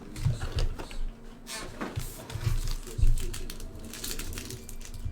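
Trading-card packs and cards being handled on a table: rustling, light taps and clicks, with a few soft low thumps.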